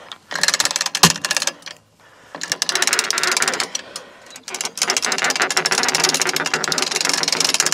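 A ratchet strap being cranked hard in three bursts of fast clicking, with one sharp knock about a second in, as it is tightened to roll a heavy sawn timber over on a sawmill bed. The strap is under high tension, the kind that can make a hook or fitting ping off.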